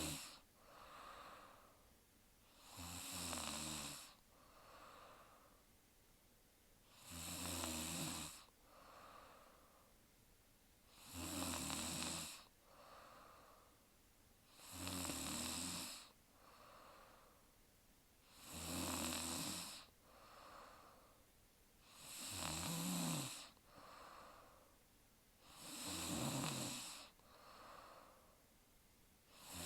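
A woman snoring in her sleep in a steady, regular rhythm: a snore about every four seconds, each followed about a second later by a softer breath.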